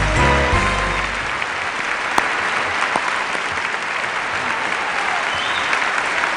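Large audience applauding steadily, with music playing over it that fades out about a second in.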